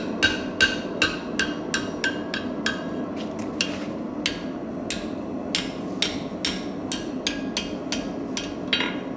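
Hand hammer striking a red-hot steel scroll on the anvil: a quick even run of blows, about three a second, each with a short ring, then slower, irregular blows over the rest. A steady low hum runs underneath.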